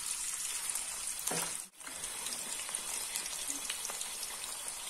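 Cut potato chips deep-frying in hot oil in a metal karahi: a steady hiss with fine crackling. It cuts out briefly a little under two seconds in, then carries on.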